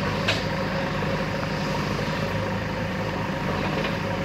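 An engine idling steadily with a low, even hum. A brief click comes about a third of a second in.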